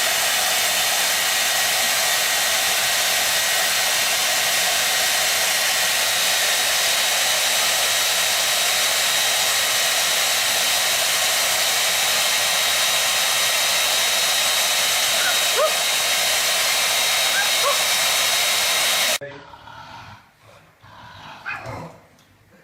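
A loud steady rushing noise, like an electric blower, with a faint high whine, starting abruptly and cutting off suddenly after about nineteen seconds. A few faint short squeaks sound near the end of it.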